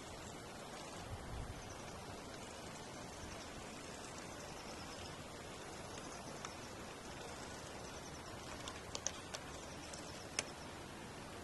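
Steady low hiss of background noise, with faint high chirping and a few sharp clicks near the end.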